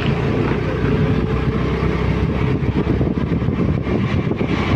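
Honda Activa scooter moving along a road, heard from the seat: a steady rush of wind and road noise over a low engine hum.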